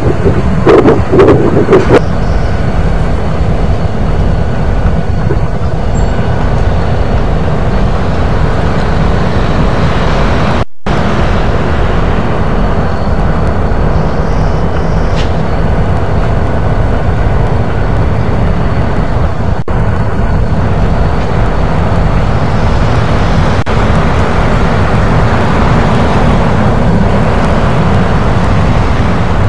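Loud, steady low rumbling outdoor noise, louder for the first two seconds, with a split-second dropout about ten seconds in.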